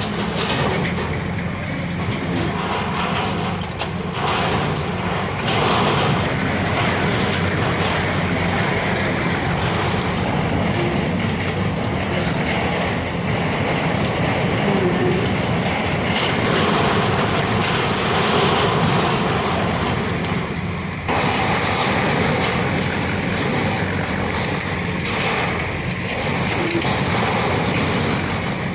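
Bulldozer's diesel engine running steadily under load, with mechanical clatter, and an abrupt break about three-quarters of the way through.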